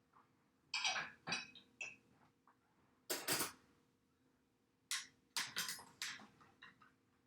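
Dishes and cutlery clinking and knocking as they are set into a dishwasher's racks, in three quick clusters of sharp clinks.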